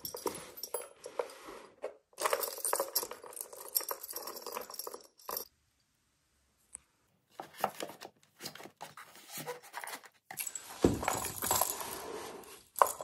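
Metal charms hanging from handmade junk journals jingling and clinking as the books are handled and slid into place on a shelf, in several bouts with a short pause about halfway through. A book knocks against the shelf near the end.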